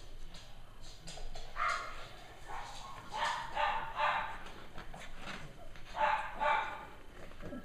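Cavalier King Charles spaniel giving high-pitched yips in short bursts: once about two seconds in, a cluster between three and four seconds, and again near six seconds.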